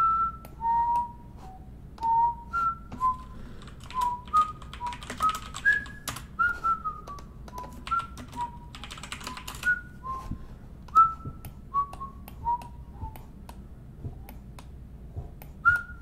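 A person whistling a meandering tune in short clear notes, some sliding a little in pitch. Scattered light clicks and two brief rustles, about five and nine seconds in, sound beneath it.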